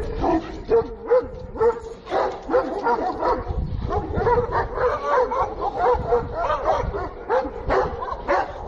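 Kangal shepherd dogs barking and yelping excitedly, many short calls overlapping one after another.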